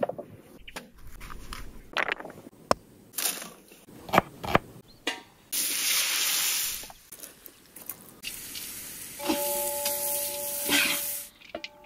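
Food-preparation sounds in quick succession. First come a few sharp knocks and handling sounds. Then a heap of chopped red onion is poured out in a rushing shower, and finally onion and crumbly stuffing are stirred and scraped across a tray, with a ringing tone for a couple of seconds near the end.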